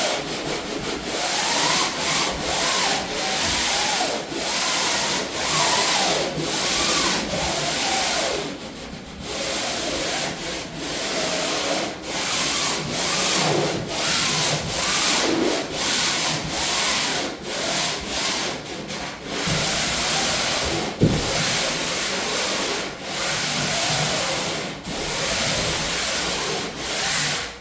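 Drywall sander with 150-grit paper rubbing over primed plywood in back-and-forth strokes, about one a second, with a single knock about three-quarters of the way through. It is a light pass to knock down wood grain raised by the first coat of paint.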